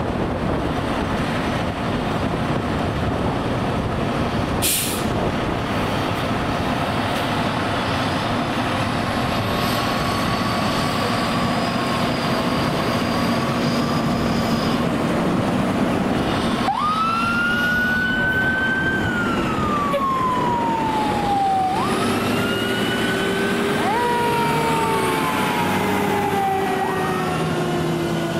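Fire engine's diesel engine running as the apparatus pulls out. About two-thirds of the way through, sirens start to wail, each rising quickly and then falling slowly. The wails repeat, and near the end a second siren overlaps the first.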